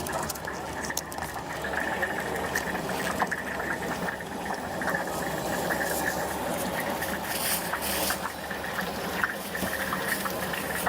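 Stinky tofu deep-frying in hot oil: a steady, dense crackling sizzle over a low steady hum, with a few light clicks of utensils.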